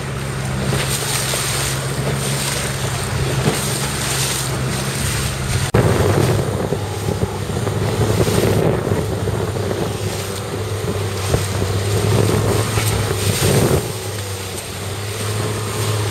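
A motorboat engine drones steadily under wind on the microphone and water rushing and splashing against a hull. About six seconds in the sound breaks off for an instant, then resumes with the engine note a little lower and the water splashing louder.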